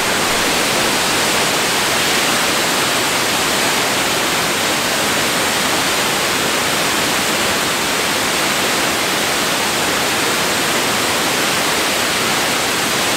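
Nunobiki Falls and the water spilling over the stone dam beneath it: a loud, steady rush of falling water with no change.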